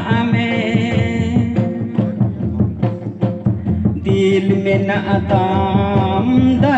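Santali folk dance song: voices singing over a fast, steady drum beat. The singing drops out about two seconds in and comes back about four seconds in while the drumming carries on.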